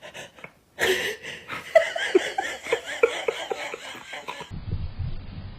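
A person laughing in quick, repeated bursts, starting about a second in and breaking off suddenly near the end.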